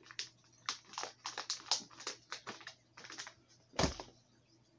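Crinkling and crackling of a clear plastic soft-plastic lure bag being handled, a quick run of sharp clicks. One louder thump about four seconds in.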